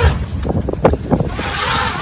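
Vehicle engine rumbling on a rough dirt track, with knocks and rattles from the body jolting and wind on the microphone. Near the end a long, arching high-pitched call begins.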